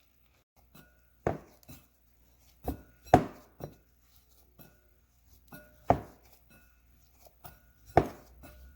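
Pizza dough being kneaded by hand, giving about six irregular sharp knocks against the work surface, with faint background music underneath.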